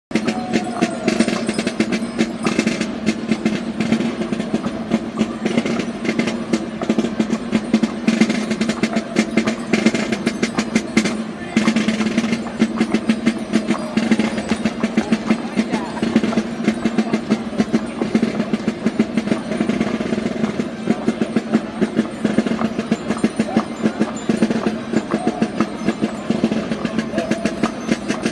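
Snare drums playing continuous rapid rolls and beats, with a steady low musical tone underneath and crowd voices.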